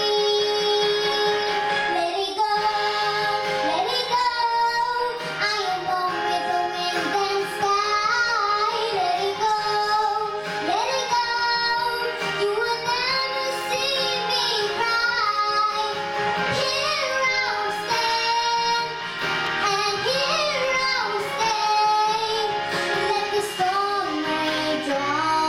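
A young girl singing a ballad into a microphone over a recorded instrumental backing track.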